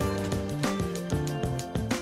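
Instrumental background music, a tune whose notes change every fraction of a second.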